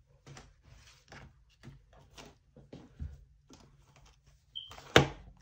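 Soft rustles and taps from handling a cash-budget binder and its plastic envelopes, then a sharp click about five seconds in.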